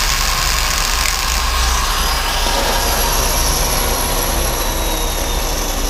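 Hanging flex-shaft rotary tool motor running steadily, a continuous whine over a loud hum, its tone sliding slightly lower from about halfway through.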